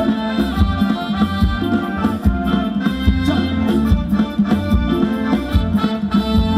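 Thai ramwong dance music from a live band played loud through PA speakers, with a steady beat and a sustained, reedy melody line.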